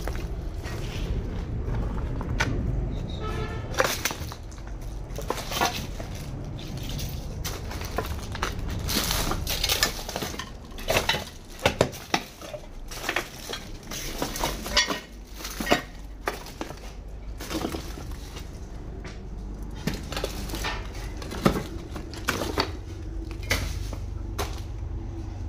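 Footsteps crunching and scraping over rubble and dirt, giving irregular clicks and crackles, over a steady low rumble.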